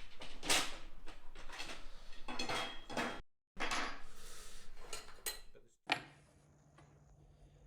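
Metal parts clattering and scraping as they are handled, in short cut-together stretches, ending in a low steady hum of room tone.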